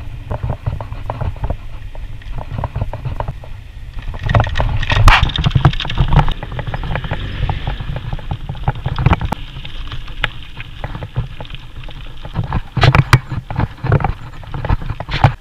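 Mountain bike rattling and jolting over a rough path, with a steady low rumble of wind on the microphone and many sharp knocks; the heaviest knocks come about four seconds in and again around thirteen seconds.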